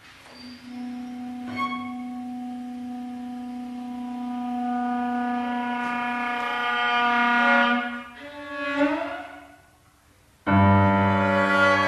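Contemporary chamber music for flute, clarinet, violin, cello and piano. Long held notes swell slowly louder and break off about eight seconds in. A short swell and a near pause follow, then a sudden loud chord comes in near the end.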